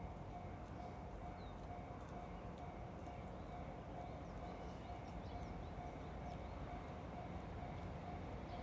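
Japanese level-crossing warning bell ringing, one tone repeated at an even, rapid beat, with a few faint bird chirps over it.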